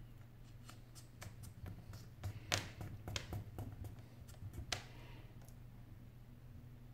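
Small hand tools clicking and tapping against the metal frame and internal parts of an opened iPhone 8 Plus during disassembly: a dozen or so irregular sharp clicks, loudest in the middle, over a low steady hum.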